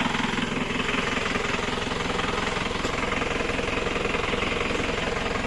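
A truck's engine running steadily at close range, with a fast, even low clatter of firing pulses.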